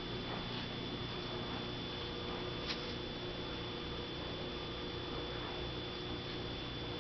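Steady electrical hum with a constant high whine over a noise floor, and a single sharp click about two and a half seconds in.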